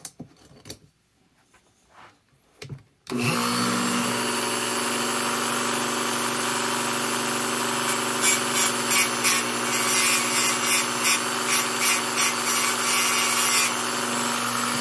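A corded Dremel rotary tool starts about three seconds in, after a few light knocks, and runs at a steady whine. From about halfway it grinds in short touches, about two a second, as its cutting wheel trims the end gap of a chainsaw piston ring a little at a time.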